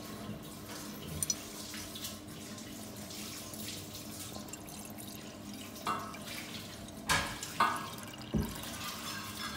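Water poured from a plastic bottle into a saucepan: a steady trickling stream, with a few sharper, louder knocks and splashes near the end.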